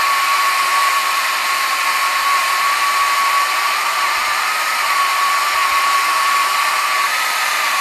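Handheld blowtorch burning with a steady hiss and a faint, steady whistle. Its flame is being played over the outside of a red oak bowl to scorch the grain.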